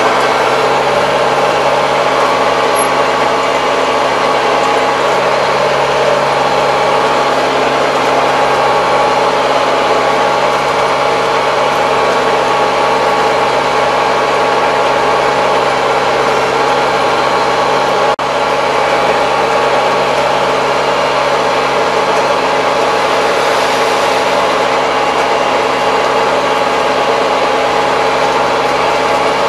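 Kubota 75 hp tractor's diesel engine running steadily under way, heard from inside the closed cab as an even, unchanging hum.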